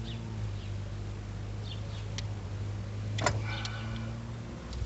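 Steady low hum with a few faint high chirps over it, and a sharp click followed by a short squeak about three seconds in, as a broken heater-hose end is being pried and worked out of a plastic quick-connect fitting.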